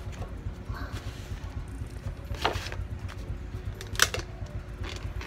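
Short plastic clicks and knocks as a plastic paint tub and a cut, crinkled plastic bottle are handled, the loudest about four seconds in and another about two and a half seconds in, over a steady low rumble.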